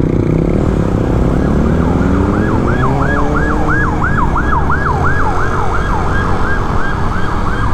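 Emergency-vehicle siren in a fast yelp, about three sweeps a second, starting about a second and a half in, over steady road and wind noise from the moving scooter.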